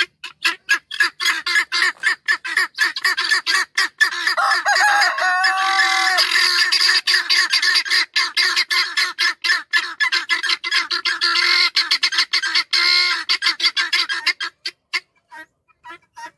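A flock of helmeted guinea fowl calling loudly in rapid, harsh repeated cackles. About four seconds in, a rooster crows once, a held call of about two seconds, over the guinea fowl chatter.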